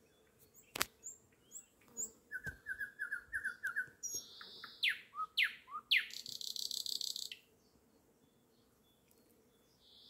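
Nightingale singing one song phrase: a sharp click, a quick run of about eight repeated notes, a few falling whistles, and a dry buzzing rattle that ends about seven seconds in.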